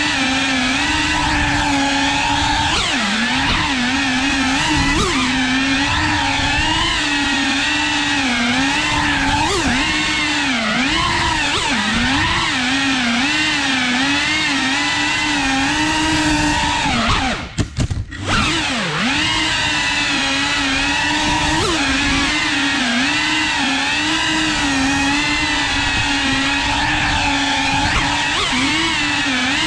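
FPV quadcopter's motors and propellers whining, the pitch constantly rising and falling with the throttle. About two-thirds of the way through the throttle is cut and the whine drops away for about a second, then swoops back up.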